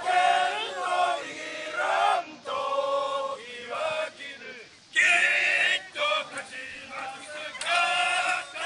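A group of men chanting a Japanese university cheering-squad song in unison, unaccompanied, with louder, shouted lines about five seconds in and near the end.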